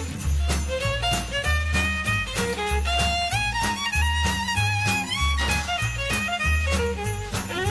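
Music: a fiddle-like melody over a repeating bass line.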